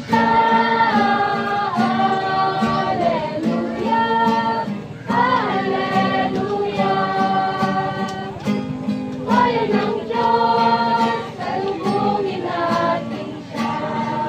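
A group of voices singing a song together in phrases of long held notes, accompanied by an acoustic guitar strummed in a steady rhythm.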